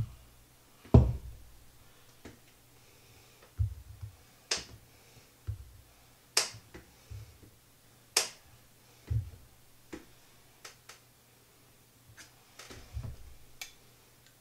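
Scattered sharp clicks and dull knocks of hand food preparation: a glass pickle jar handled and pickled cucumbers sliced with a knife on a wooden cutting board, with the heaviest knock about a second in.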